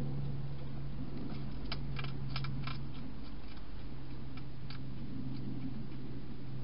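Wild European hedgehog crunching dry food inside a plastic feeding box: a quick run of sharp clicks in the first half, a few more later, over a steady low hum.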